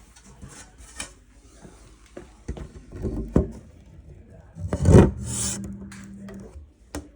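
Wooden back panel being fitted to a grandfather clock case: wood rubbing and scraping, with a few knocks. The loudest scrape and knock comes about five seconds in.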